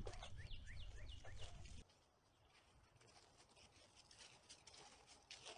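Faint, quick chirps of small birds over a low rumble that cuts off abruptly about two seconds in, then near silence.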